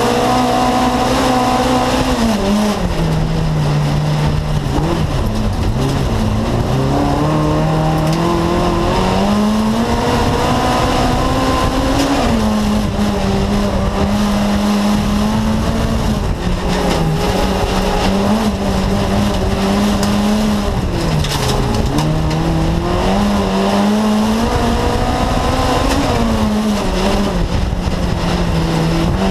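VW Beetle race car's air-cooled flat-four engine heard from inside the cabin at racing speed, its note climbing and dropping repeatedly as the driver accelerates, shifts and lifts off, with tyre and body noise underneath.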